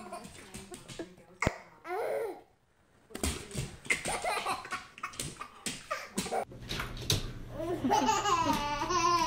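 A baby laughing heartily in short bursts. After a brief pause more laughter follows, with a low steady hum underneath in the last few seconds.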